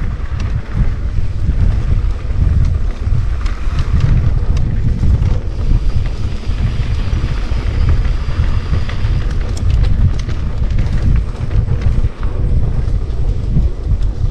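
Wind buffeting the microphone and low rumble from a mountain bike riding fast over a trail, with scattered clicks and rattles from the bike and tyres.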